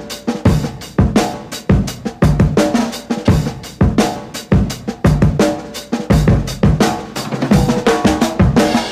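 Background music led by a drum kit keeping a steady beat.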